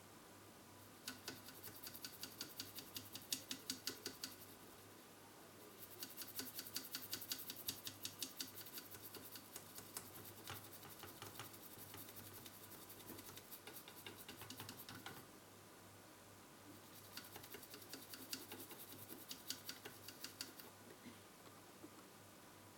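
A brush scrubbing a circuit board to clean off solder flux around a freshly soldered chip, in rapid short strokes, several a second, in three bouts.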